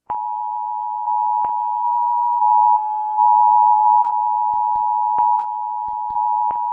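Emergency Alert System attention signal: a steady two-tone alarm near 1 kHz, its loudness stepping up and down a few times, with several sharp clicks over it.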